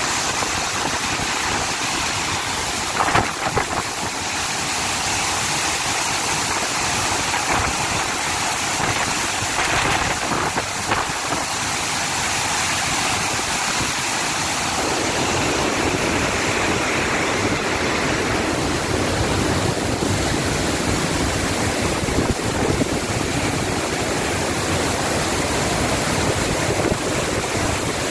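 Steady roar of rushing floodwater and blowing spray, with a couple of sharp knocks about three seconds in and a deeper rumble joining about halfway through.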